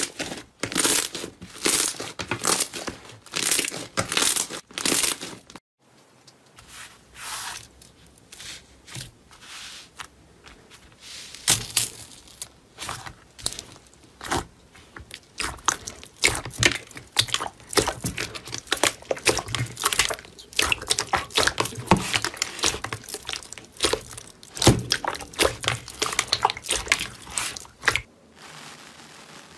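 Slime being pressed and squeezed by hand, crackling and popping as air pockets burst. The crackle is densest for the first six seconds, breaks off briefly, then returns as sparser clicks and pops, and drops away near the end.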